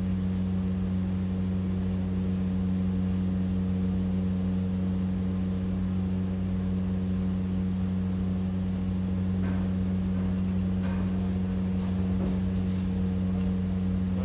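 A steady low mechanical hum from running machinery, even and unchanging, with a few faint metal clicks in the second half as gearbox parts are handled with pliers.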